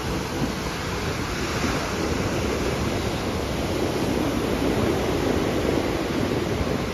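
Ocean surf breaking and washing up the shore, a steady rush that swells through the middle as a wave rolls in.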